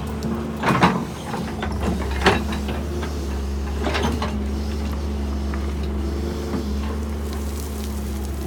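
Doosan wheeled excavator's diesel engine running steadily, with a few sharp knocks or clanks about one, two and four seconds in.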